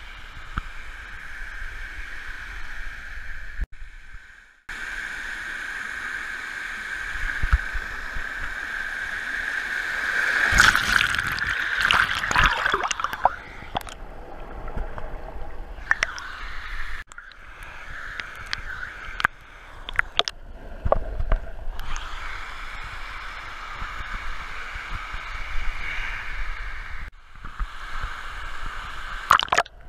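River water sloshing and splashing close to the microphone as a swimmer moves through it, over the steady rush of small cascades. The splashing is loudest and busiest about a third of the way in, with a few brief drop-outs in the sound.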